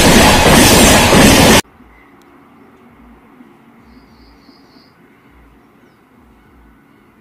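Loud, close rumble and clatter of a passing passenger train's coaches that cuts off abruptly about one and a half seconds in. A faint outdoor hush follows, with a short three-note bird chirp about four seconds in.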